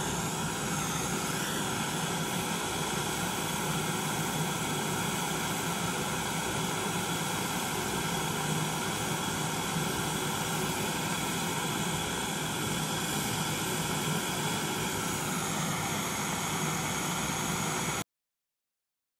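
Homemade gas brazing torch flame burning with a steady rushing hiss, then cutting off suddenly near the end.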